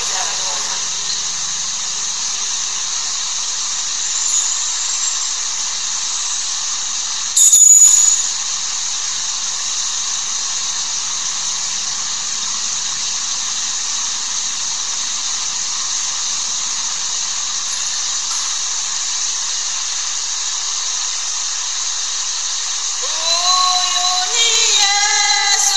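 Steady hiss of background noise, broken about seven seconds in by one brief loud rushing burst. Singing voices begin near the end.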